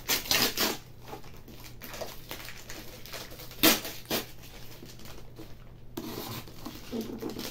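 Utility knife cutting into a brown paper parcel: scattered scraping, rustling and tearing of the packaging, with a sharp click about halfway through.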